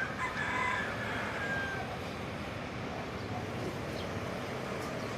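A rooster crowing once, a call of about a second and a half near the start, over a steady wash of surf and wind.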